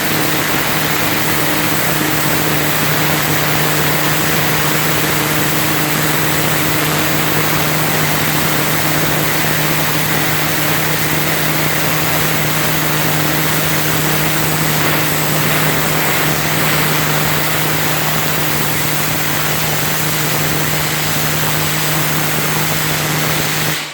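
Kärcher HD 9/50-4 Cage high-pressure washer running at 500 bar: a steady motor and pump hum under the loud, even hiss of the water jet blasting concrete off a floor.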